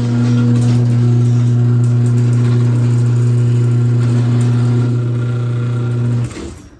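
Liftmaster 1/2 hp chain drive garage door opener running as it closes the door, with a steady, loud buzzing hum. The hum cuts off about six seconds in as the opener stops.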